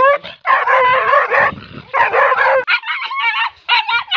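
Pakistani bully dogs barking in quick, nearly continuous runs. From about two and a half seconds in, the barks turn shorter and higher-pitched.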